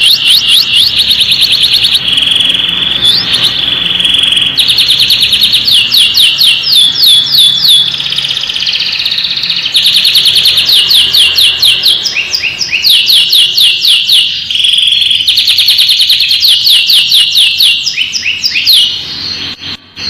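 Canary singing loud, continuous song. Fast runs of quickly repeated sweeping notes alternate with steady, held rolling trills, with a short pause near the end.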